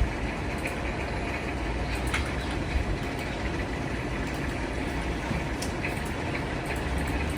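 A Minka Aire Supra ceiling fan running steadily, its blades moving air with an even whoosh and a low rumble.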